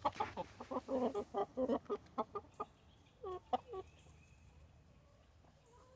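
Chickens clucking, a quick run of short clucks for the first two and a half seconds, then a couple of longer calls that bend in pitch about three and a half seconds in, after which they fall quiet.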